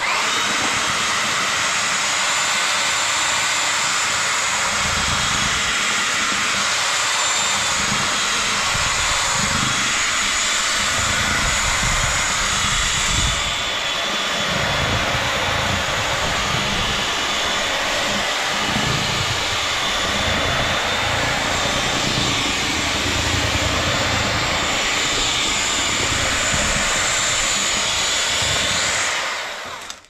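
Titan electric drill driving a large paddle whisk through mortar in a bucket, its motor running steadily with a high whine. The motor's note changes about halfway through, and the drill stops just before the end.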